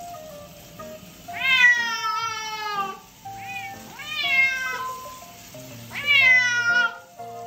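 Scottish Fold cat yowling loudly in protest at being bathed under a shower. There are three long drawn-out cries, each rising then falling in pitch, with a short one between the first two.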